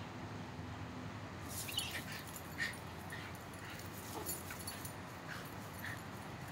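Miniature pinscher puppy giving a string of short, high-pitched whimpers and yips, about five in a few seconds starting a second and a half in, with rustling grass as she tugs at a squirrel's fur.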